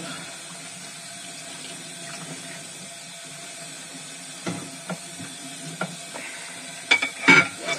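Kitchen tap running steadily into a sink during washing-up, with a few clinks of crockery from about four and a half seconds in and a louder clatter near the end.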